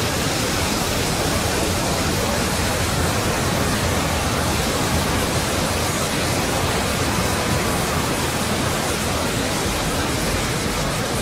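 Dozens of Lego City TV commercial soundtracks played over one another at once, their voices, music and effects merging into a steady, dense wall of noise with no words or tune standing out.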